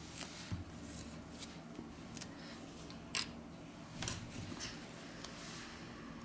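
Small clicks and taps of a smartphone's plastic and metal internal parts being handled and pressed into place during reassembly, with two sharper clicks about three and four seconds in.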